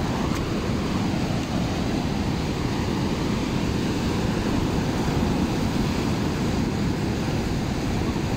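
Ocean surf breaking and washing over a rocky reef and into a gully, a steady noise of churning water, with wind rumbling on the microphone.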